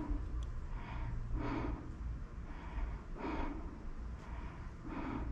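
A person breathing audibly close to the microphone: soft in-and-out breaths about every second and a half to two seconds, over a low steady rumble.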